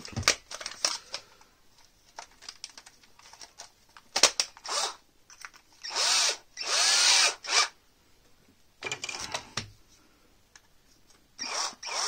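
Cordless drill-driver run in several short bursts, its motor pitch rising and falling with the trigger, after a few light clicks. It is drilling out the thin sleeve bushing of a rattling computer fan after the bushing has been peened tight.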